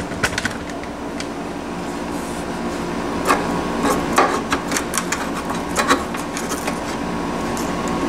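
Handling noise: scattered knocks and scrapes as a wooden block is fitted by hand against the sheet-metal base pan of a window air conditioner, over a steady background hum.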